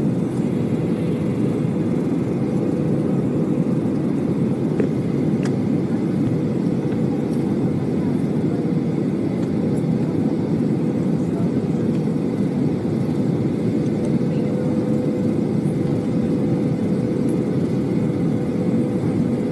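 Steady jet engine and airflow noise heard inside an airliner cabin on final approach, with a thin steady whine running through it.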